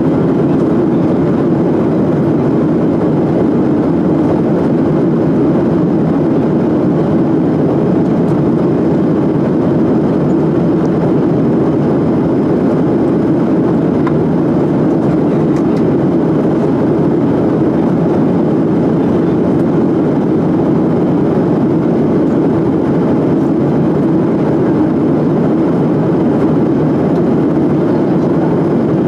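Steady, unchanging drone of a passenger jet in flight heard from inside the cabin: engine and airflow noise.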